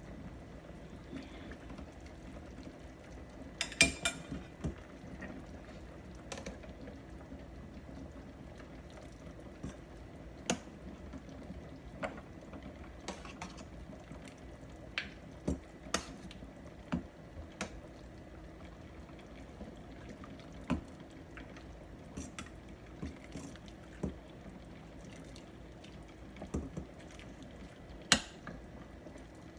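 A metal spoon and ladle clink against a stainless steel stockpot while soup is scooped and poured into a ceramic bowl, with splashes of broth. The clinks are scattered, the loudest about four seconds in and again near the end, over a faint steady hum.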